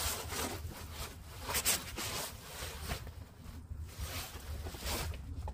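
Gear oil draining from the open gearbox drain hole into a drain pan, a steady trickling with a couple of brief louder splashes.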